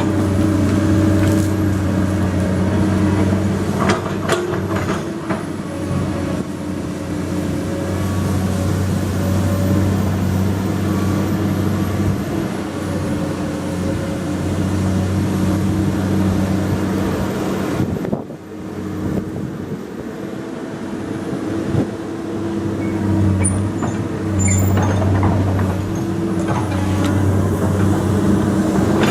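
Komatsu PC200 excavator's diesel engine running and working under varying load, its note swelling and easing, with a brief sharp drop a little past halfway. A few knocks sound over the engine.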